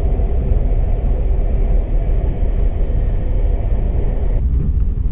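Passenger train running at speed, heard from inside the carriage: a steady low rumble with a hum of several steady tones. Near the end the higher part of the noise drops away and only the low rumble remains.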